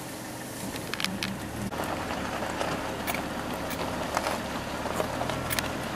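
A vehicle engine idling with a low steady hum, under a crackly rustling noise with scattered sharp clicks. The sound changes about two seconds in, where the hum and the crackle become louder.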